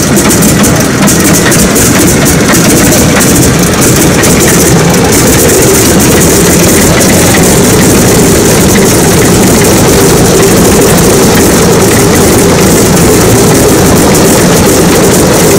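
Antonov An-2's nine-cylinder Shvetsov ASh-62IR radial engine running, loud and steady.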